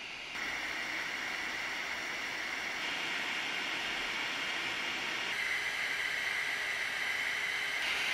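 Small radial blower fans of the 4010, 4020 and 5015 sizes used for 3D printer part cooling, running in pairs at about 6000–7000 RPM: a steady rushing hiss with a high whine. The whine's pitch and the loudness change in steps a few times as one fan pair gives way to the next, getting a little louder each time.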